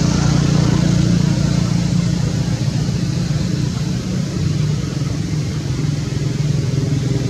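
Steady low drone of a running motor vehicle engine.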